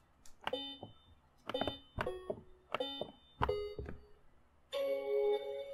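Short electronic musical notes played one at a time on a puzzle control panel's note buttons, each starting with a button click, about a dozen at an uneven pace. Near the end a longer held chord sounds.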